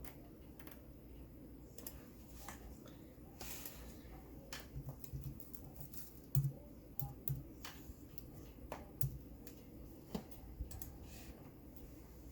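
Irregular key clicks and taps on a MacBook's keyboard, typing at an uneven pace, with a few soft thumps in the middle.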